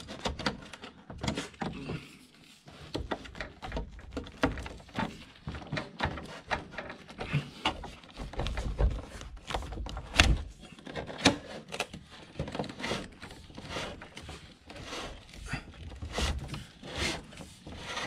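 A plastic cable protector being pressed into a knockout hole in a steel electrical panel, and cable fed through it. Irregular clicks and knocks, with plastic and wire rubbing against sheet metal, the strongest knock about ten seconds in.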